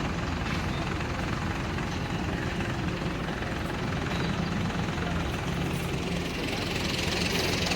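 Engines running steadily: a continuous low rumble under an even hiss of traffic-like noise, growing slightly brighter near the end.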